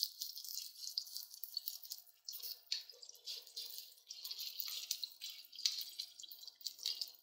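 Pearl millet (bajra) roti dough frying in hot ghee on a tawa, a faint steady sizzle of crackles and small spatters, while a wet hand presses the dough flat.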